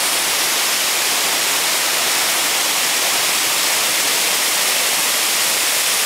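A 15-metre mountain waterfall pouring down a rock face into its plunge pool: a steady, even hissing rush of falling water.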